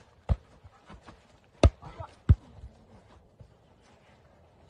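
A volleyball being knocked back and forth by people and a dog: three sharp thumps within the first two and a half seconds.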